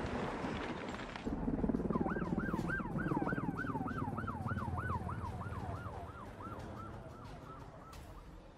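Emergency vehicle siren in a fast yelp, rising and falling about three times a second and fading away, over a low rumble; a rush of noise comes just before the siren begins.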